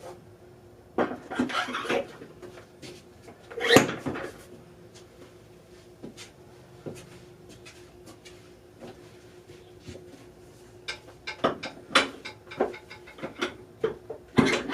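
Scattered knocks and clatters of weight-training gear being handled, likely barbell plates and collars being changed. The loudest knock comes a few seconds in, and a run of quick clicks and knocks comes near the end, over a faint steady hum.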